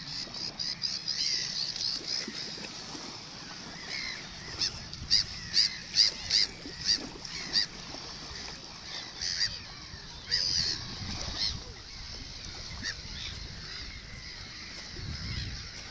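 A flock of birds calling with many short, high cries, loudest in a quick run of calls around the middle and again a little later.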